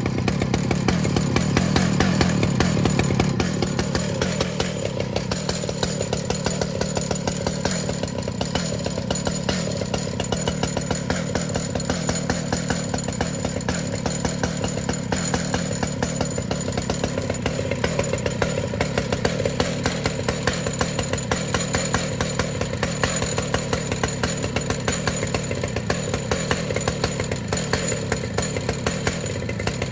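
Chainsaw in an Alaskan chainsaw mill running steadily under load, ripping lengthwise through a cedar log, a little louder in the first few seconds.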